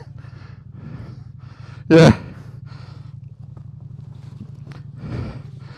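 Honda Africa Twin's parallel-twin engine idling steadily with an even, rapid pulse while the bike waits at a standstill.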